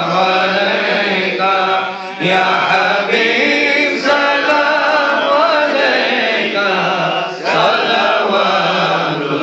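A man's voice chanting devotional verses through a microphone in long melodic phrases, over a steady low hum.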